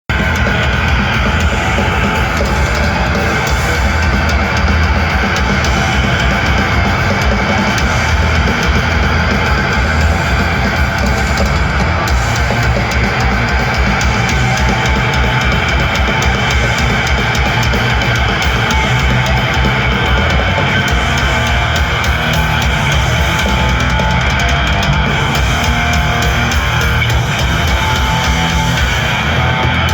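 Swedish death metal band playing live through a loud PA: distorted electric guitars and fast drumming in a dense, continuous wall of sound that never lets up.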